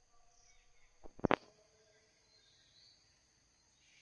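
Steady high-pitched insect drone with faint bird chirps. About a second in, one brief loud noise lasting about a third of a second cuts across it.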